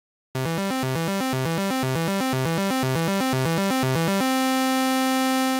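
Synthesized oscilloscope music, audio made to draw a picture on an XY oscilloscope. A buzzy, bright tone starts suddenly and jumps rapidly between low pitches, then about four seconds in settles into a steady held chord.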